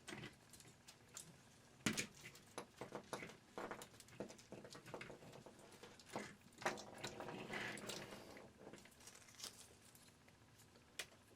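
Light clicks, taps and rustles of hands handling small plastic Christmas-light parts, with a sharper click about two seconds in.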